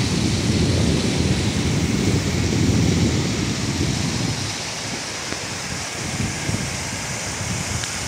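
Steady rush of a large waterfall and its whitewater stream, an even hiss with a heavy low rumble through the first half that eases off about four seconds in.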